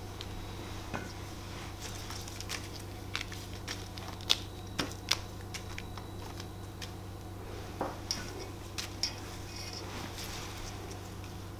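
Rose petals being plucked by hand and dropped into a stainless-steel tray: faint rustling with scattered light ticks and taps on the metal, two sharper taps a little before the middle.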